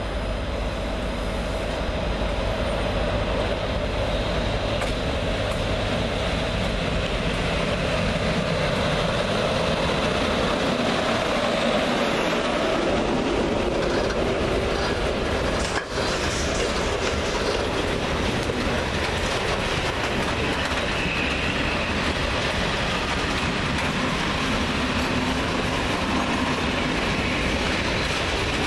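Electric freight train passing close by: a locomotive goes by, then a long string of hopper wagons, with a steady noise of wheels running on the rails.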